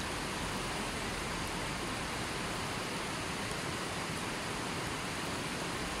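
Steady sound of a shallow, rocky river flowing over and around boulders.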